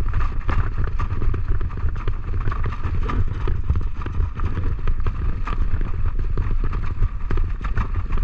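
Huskies running in harness, pulling a wheeled training rig: a continuous rolling rumble with a rapid, uneven patter of paws and clicks from the track.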